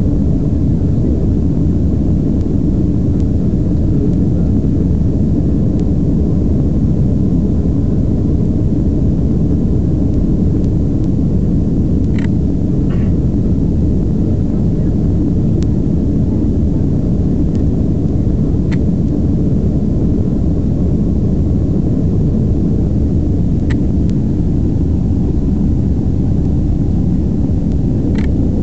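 Steady low roar of cabin noise inside a Boeing 767-300 as it climbs out after takeoff, heard from a window seat over the wing. A few faint clicks come through the roar.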